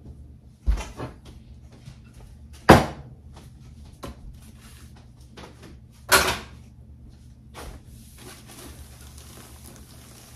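Kitchen clatter: a few sharp knocks and bangs of cupboard doors and things handled at the counter, the loudest about three seconds in and another about six seconds in. Near the end, a cloth rubs across the countertop.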